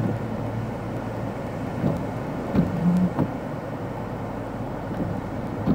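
Wind and breaking surf make a steady rushing rumble, with a few soft knocks. A low steady hum stops a little over a second in.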